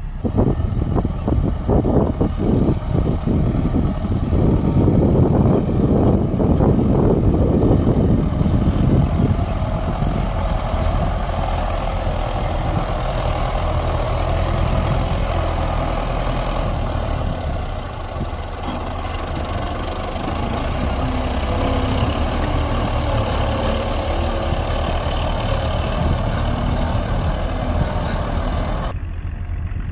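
Heavy diesel construction machine running under load, with dense clattering for roughly the first nine seconds, then a steady engine drone with a whine; the sound changes abruptly near the end.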